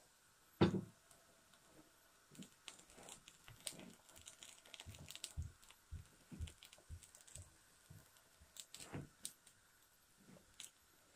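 Wooden spatula tapping and pressing on a gram-flour roti in a frying pan: irregular light clicks and taps, with a louder knock about a second in and another near nine seconds.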